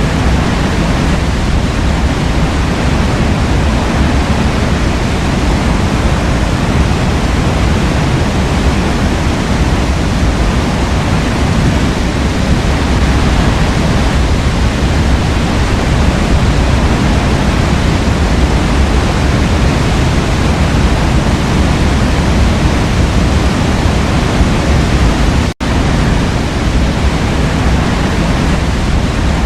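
Waterfall: a steady, loud rush of falling water that cuts out for an instant near the end.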